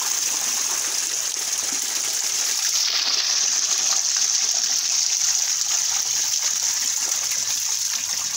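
Water pouring out over the rim of a tipped plastic tub and splashing onto a wet floor: a steady gushing splash that does not let up.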